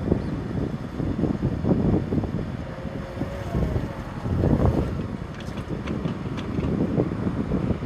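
Engine running under heavy, gusty wind rumble on the microphone.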